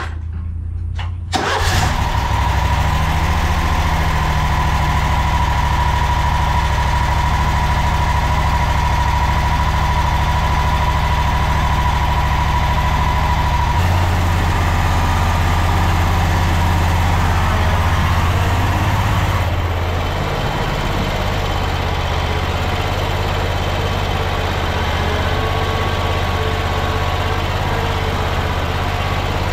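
Toro Z-Master 4000 zero-turn mower engine starting about a second in, then running steadily. Its note shifts about fourteen seconds in. Its level dips slightly about twenty seconds in, as the mower backs out of the enclosed trailer.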